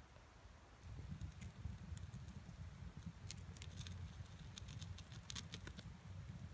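Small campfire of twigs and sticks crackling, with irregular sharp pops over a low rumble, starting about a second in.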